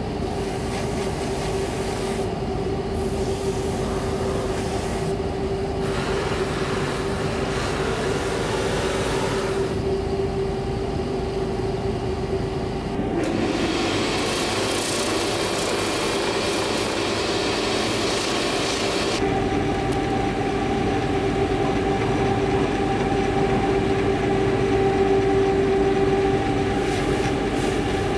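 Shoe finishing machine running with a steady hum as its brush and buffing wheels spin. Twice there is a long stretch of rasping rub as a leather heel is pressed against the wheels to colour it. A second, higher hum joins about two-thirds through.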